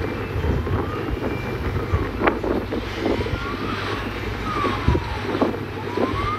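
Wind buffeting the microphone over a steady vehicle rumble, with faint tones gliding up and down every second or two and a few sharp clicks.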